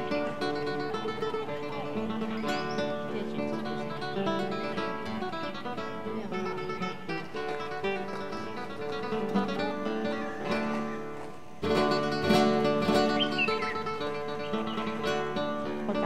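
Background music on plucked and strummed acoustic guitar, with a brief drop about eleven and a half seconds in before it comes back louder.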